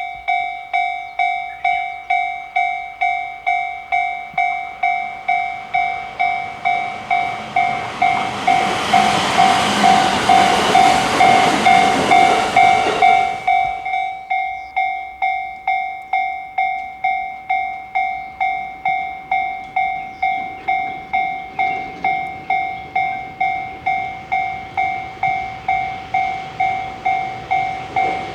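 Japanese level crossing warning bell ringing in a steady repeating ding, a little more than one strike a second. Between about a quarter and halfway through, a train rushes past the crossing, building up and then cutting off sharply as it clears, while the bell keeps ringing.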